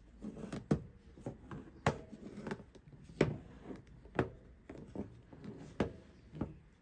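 Smartphones being picked up and turned face down on a wooden tabletop: a string of irregular light knocks and clicks, five or so louder than the rest.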